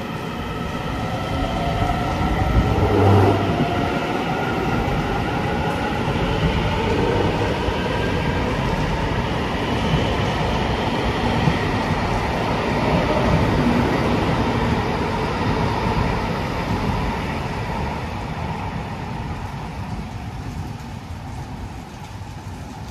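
Hyundai Rotem EMU900 electric multiple unit accelerating away from a station platform: its traction motors whine in several rising tones over the rumble of wheels on rail. The sound fades near the end as the last cars pull away.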